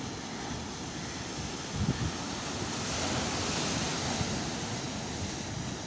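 Sea surf breaking and washing over a stone-block breakwater, a steady rushing that swells about three seconds in. Wind buffets the microphone with a few low thumps around two seconds in.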